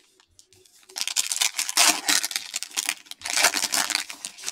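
Foil trading-card pack and cards handled by hand: crinkling and rustling in two bursts, the first about a second in and the second about three seconds in, as a pack of Mosaic football cards is opened and its cards pulled out.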